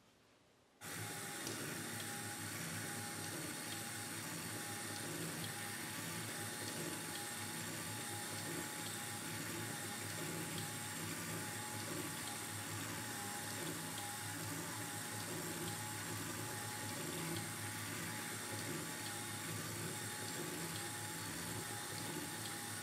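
Small motors of a homemade Arduino toy CT scanner start up about a second in and run steadily, with a hiss-like whir and a faint whine. A stepper motor drives the patient bed in and out of the ring while the ring turns.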